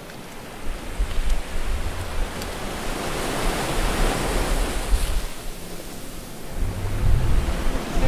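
Ocean surf washing in: a steady rush that swells to a peak about halfway through and then eases, with low gusty rumbles of wind on the microphone.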